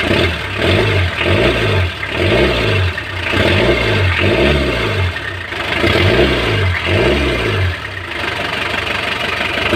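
Mitsubishi L300 engine being revved up and let back down over and over, about once a second. It runs without the rocker-arm clatter, just after a set of new rocker arms has been fitted.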